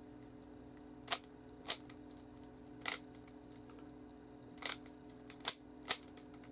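Rubik's Cube faces being twisted while it is scrambled: six sharp plastic clicks at uneven intervals, over a faint steady hum.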